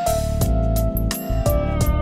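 Background music with a steady beat and held notes over a strong bass.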